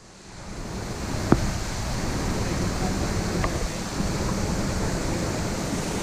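Steady rush of a stream flowing through the rocky gully below, swelling in over the first second or so, with one sharp tap just after a second in.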